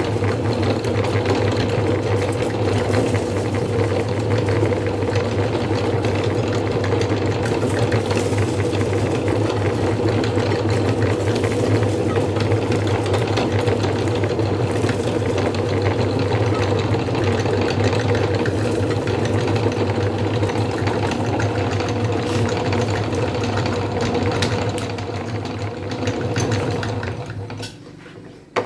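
Electric meat grinder motor running steadily with a dense crackle of peanut snack being ground. It runs down near the end, followed by a single sharp click.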